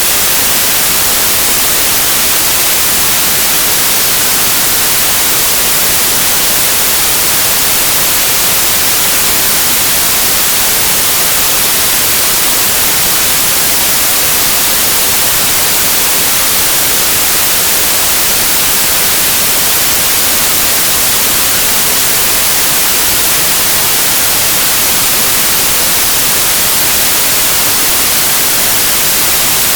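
Steady, unbroken white noise: an even hiss, loudest in the high frequencies, with no changes.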